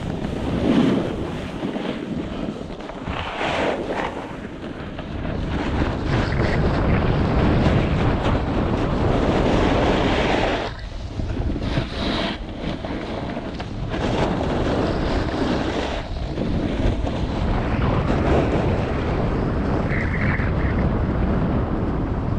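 Wind rushing over the microphone while a snowboard slides down a groomed piste, with the board scraping the snow. The noise swells and eases through the turns and briefly drops away about eleven seconds in.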